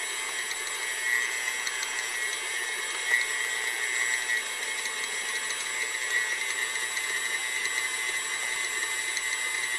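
KitchenAid stand mixer running steadily with its dough hook kneading bread dough, a constant motor hum with a high whine.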